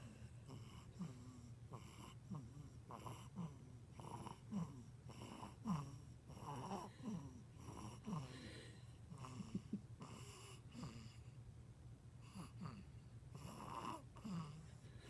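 Faint snoring from a sleeper, with short, falling, wheezy squeaks coming every second or so.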